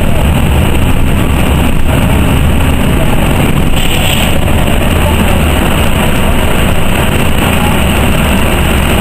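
NovaBUS RTS city bus heard from inside while riding: steady, loud engine and road noise with a strong low drone. A brief higher-pitched sound comes in about four seconds in.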